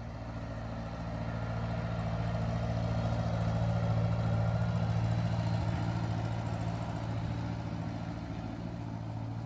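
Small vintage Ford farm tractor's four-cylinder engine running at a steady speed as the tractor drives past. It grows louder toward the middle and fades toward the end.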